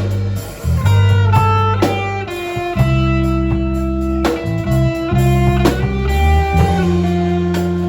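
Guitar playing a line of single plucked notes, some bent up or sliding in pitch, over held low bass notes.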